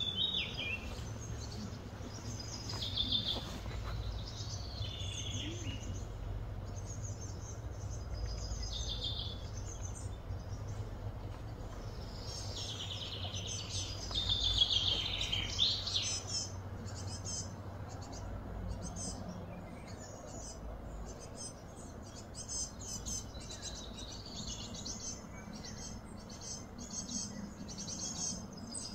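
Birds chirping and calling in short, repeated phrases, over a steady low hum of outdoor background noise.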